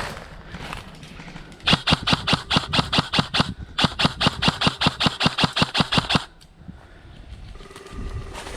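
Airsoft rifle firing two quick strings of shots at about six a second, a brief pause between them, starting about two seconds in and stopping about six seconds in.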